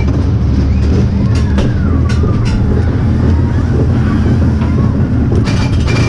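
Small family roller coaster train running along its steel track, heard from on board: a steady low rumble of the wheels with scattered clicks and rattles. About five and a half seconds in, the rattling turns sharper and busier.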